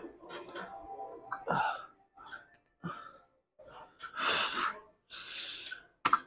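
A man breathing hard with effort through a set on a rear-delt machine, with some half-voiced sounds at first and then two long, forceful exhales about a second apart near the end. A sharp click just before the end.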